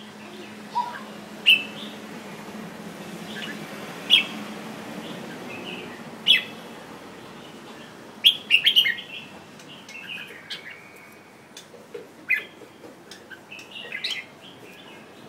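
Caged red-whiskered bulbul giving short, sharp chirps a second or two apart, with a quick run of them about eight and a half seconds in.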